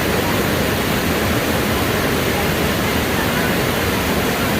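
Rushing river water, a steady even rush with no breaks.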